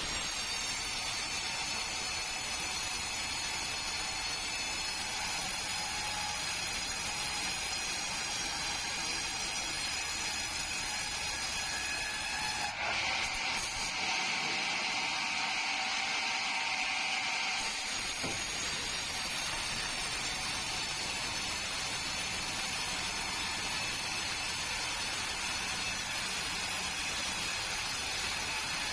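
Sawmill saw running steadily while cutting bengkirai timber: a continuous hissing machine noise with a steady high whine, changing abruptly about 13 and 18 seconds in.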